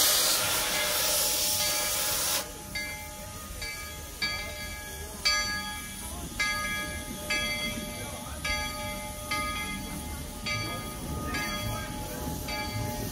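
Steam hissing loudly from the Baldwin-built C-19 2-8-0 steam locomotive, cutting off abruptly about two seconds in. Under and after it the locomotive's bell rings in a steady swing, a little more than one strike a second.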